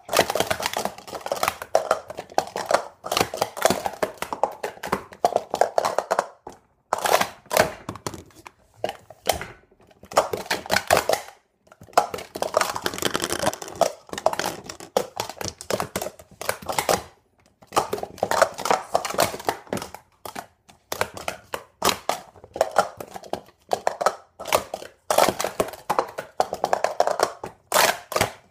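Plastic sport-stacking cups clattering in quick, dense clicks as they are stacked up and down at speed on a stacking mat, in runs of several seconds with short pauses between them.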